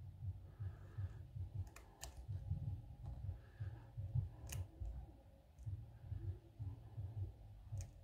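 Metal lock pick working the pin stack of an American Lock 1100 pin-tumbler cylinder under light tension: a few small, sharp clicks as pins are lifted and set, over a soft, rapid low knocking several times a second.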